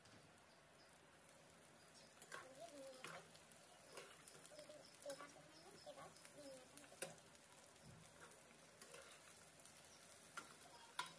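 A perforated steel spatula clinking and scraping against a metal pan as sliced okra and onions are stirred, faint, with scattered sharp clicks from about two seconds in.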